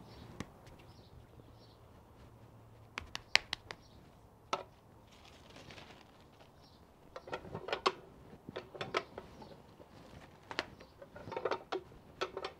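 Tortilla press being worked by hand: plastic sheets crinkling, and the press lid and handle clicking and clacking in a few short clusters as a ball of masa is pressed.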